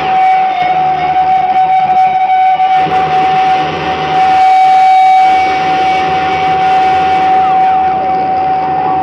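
Live experimental noise music played on keyboard and electronics: one loud held tone over a dense, shifting noise that swells about four seconds in, with falling pitch glides near the end.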